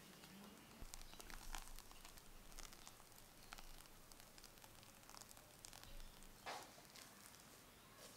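Faint, soft scraping and light clicks of a silicone spatula working thick whipped frosting against a glass bowl, with a short rustle about two-thirds of the way through.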